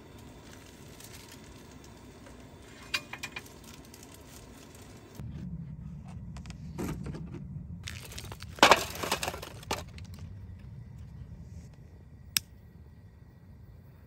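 Charcoal briquettes dropped into a foil-lined aluminium pan, a quick run of hard clattering knocks a little past the middle. A single sharp click near the end comes from the butane torch lighter being readied.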